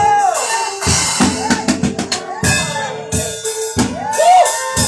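Live church band music with a drum kit: a run of kick and snare hits, with pitched notes above them that bend up and back down.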